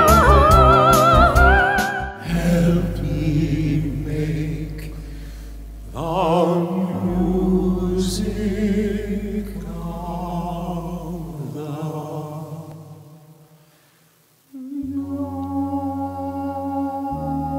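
Stage show singing with backing accompaniment: a soprano holds a high note with wide vibrato for about two seconds, then male voices sing with vibrato over low sustained accompaniment, fading out about 14 seconds in. A steady held chord then starts suddenly.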